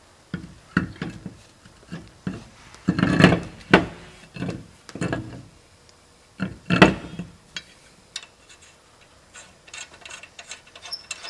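Spare wheel being handled and fitted onto the car's hub: a series of irregular knocks, clunks and scrapes, the loudest around three to four seconds in and again near seven seconds, followed by lighter clicks.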